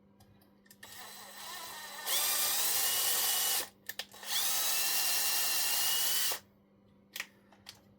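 Electric drill driving a thread tap into thin aluminium chassis plate: the motor starts slowly, then runs at full speed twice for a second or two each time, its whine rising as it speeds up, with a few short clicks between and after the runs.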